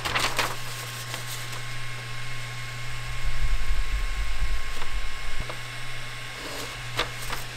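A steady low electrical hum from the powered-on Voxelab Aquila 3D printer. A sheet of paper rustles at the start. About three seconds in, a low rumble of about two seconds comes from the hand-moved print head and frame, and a few light clicks follow.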